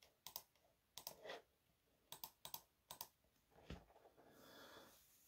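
Near silence broken by faint, irregular clicks, about a dozen, with a soft rustle near the end.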